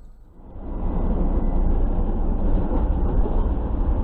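Steady road and engine rumble of a moving vehicle, picked up by a dashcam. It comes up from a quieter stretch about half a second in.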